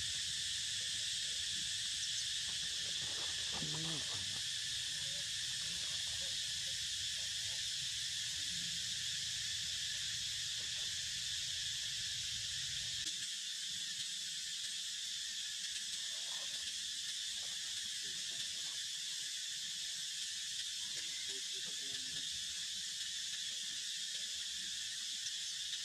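Steady, high-pitched drone of insects in the surrounding trees, with a few faint short calls about three to four seconds in.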